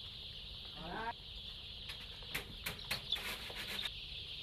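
A large flock of young chicks peeping together in a continuous high chorus, with a few sharp clicks or knocks partway through.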